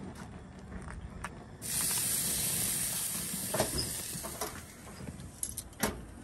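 A thick New York strip steak hits the grates of a propane grill at about 600 degrees and starts sizzling about a second and a half in, the hiss slowly dying down over the following seconds. Metal tongs click against the grates before and after.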